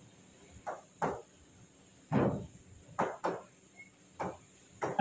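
Pen tapping and knocking against the glass screen of an interactive whiteboard while handwriting, about seven short, irregular knocks.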